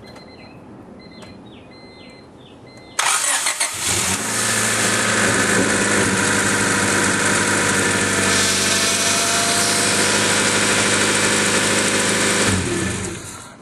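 1996 Honda Civic's D16Y7 1.6-litre four-cylinder engine cranked by the starter about three seconds in. It catches within a second and idles steadily, running on its new timing belt and water pump with no drive belts fitted, then stops near the end.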